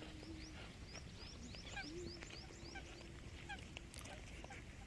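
Faint chorus of many wetland birds calling: lots of short, rising high-pitched chirps overlapping one another.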